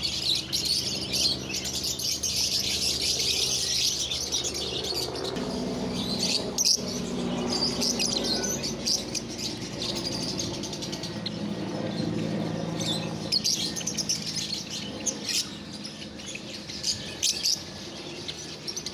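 Many small caged birds chirping and tweeting at once, a dense, continuous high twittering. A steady low hum runs underneath and changes pitch about five seconds in.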